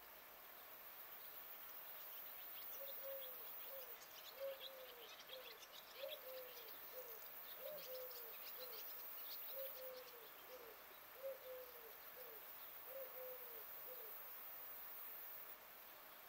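A bird calling with a series of low, short falling hoots, roughly in long-short pairs, for about twelve seconds. Faint higher chirps sound in the middle of the series.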